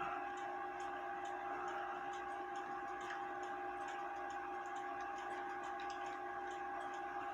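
Mechanical clock ticking steadily over a constant background hum.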